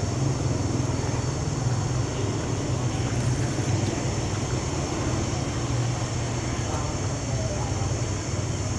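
Steady low mechanical hum over a constant hiss, like traffic or a running motor, without a break or change.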